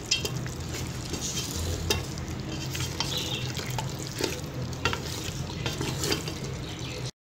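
Beef pieces on the bone frying in oil in an aluminium pressure cooker and stirred with a wooden spatula: a steady sizzle with repeated scrapes and knocks of the spatula against the pot. This is the bhuna stage, with the cooking water already cooked off. It cuts off suddenly near the end.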